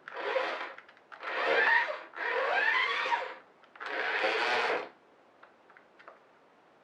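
Playwell Talk-a-Tron toy robot's battery motors and plastic gears whirring in four bursts of about a second each, the pitch wavering, as the robot turns in place under its wired controller. The whirring stops about five seconds in, leaving a few faint clicks.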